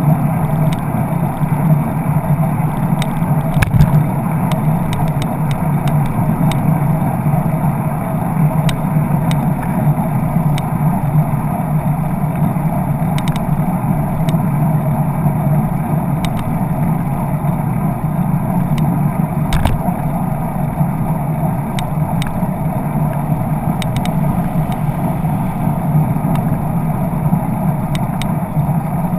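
Steady wind and road rumble on a handlebar-mounted camera as a bicycle rolls along a road, with a couple of sharp knocks from bumps.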